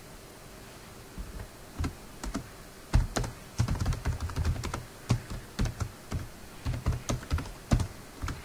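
Typing on a computer keyboard: a few scattered keystrokes, then a quicker irregular run of them from about three seconds in.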